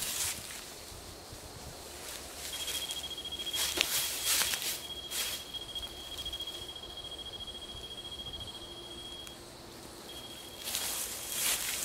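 Footsteps rustling through leaf litter on a forest floor, loudest a few seconds in and again near the end. Behind them an insect keeps up a steady, high-pitched trill for several seconds, which breaks off abruptly and returns briefly.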